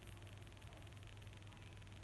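Fast, steady run of faint clicks coming from a mobile phone, over a low steady hum.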